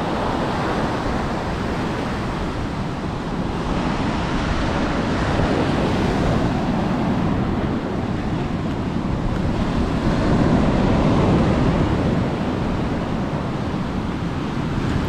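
Ocean surf breaking and washing up the beach, a steady rush of noise that swells a few times as waves come in, with wind on the microphone.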